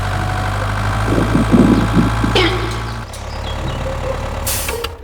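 Construction-vehicle engine idling steadily, with a few short scattered sounds over it in the middle; the engine note changes about three seconds in.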